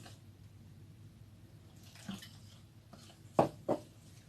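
A few short knocks of hard kitchen objects, the loudest two close together about three and a half seconds in.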